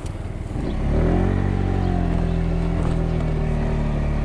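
Kymco Agility 50 scooter's 50cc engine revving up as the scooter pulls away from a stop. The note climbs about a second in and then holds steady. The engine is still cold, and its owner blames the carburetor for the sluggish take-off.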